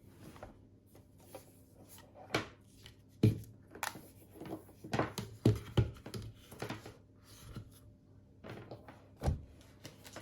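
Irregular light knocks, clicks and clunks of household objects being handled and set down, like things moved about in a drawer or cupboard.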